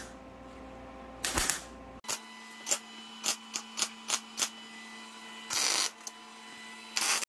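A welder laying short tack welds at the bench: a run of about ten brief crackling bursts from about a second in, two of them longer near the end, over a faint steady hum.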